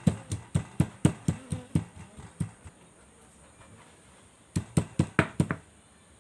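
A knife chopping on a wooden cutting board: a rapid run of knocks at about four a second that dies away, then after a pause a second short, quick burst of chopping near the end.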